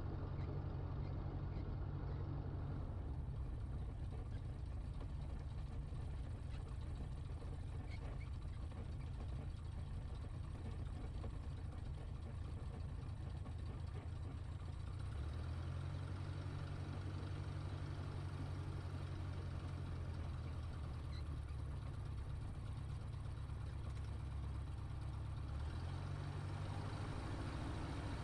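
Single-engine light aircraft's piston engine and propeller running steadily at low taxi power, heard from inside the cockpit, the engine note shifting slightly about halfway through and again near the end.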